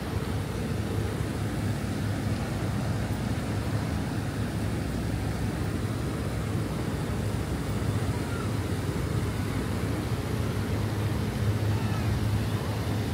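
Steady low rumble of city traffic, with no single vehicle standing out.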